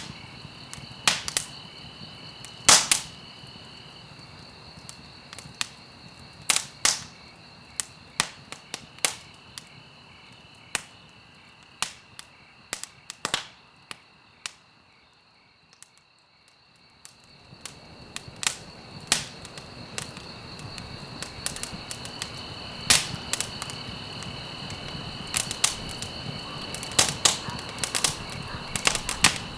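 Wood fire burning in a fireplace: irregular sharp crackles and pops over a steady hiss. The hiss dies down almost to nothing about halfway through, then swells back with more frequent pops toward the end.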